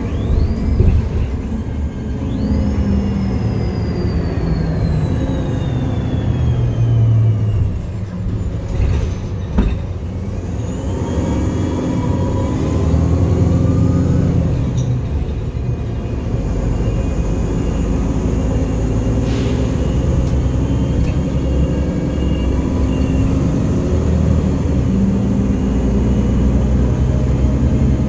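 Inside a moving city bus: the engine and road rumble run steadily, with whining tones that glide up and down in pitch as the bus speeds up and slows. A couple of brief knocks sound from the body.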